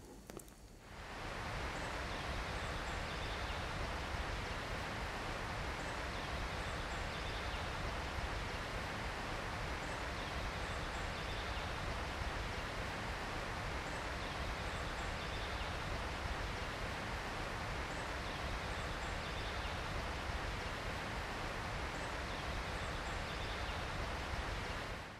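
Steady outdoor ambience: an even rushing hiss with faint high bird chirps, often in pairs, every few seconds. It fades in about a second in.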